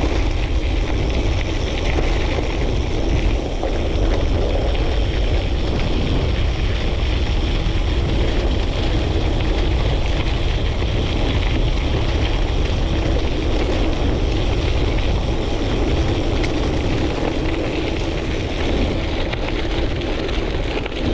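Bicycle riding fast downhill on a gravel trail: wind rushing over the helmet- or bike-mounted action camera's microphone with a deep rumble, over the steady noise of tyres rolling on gravel.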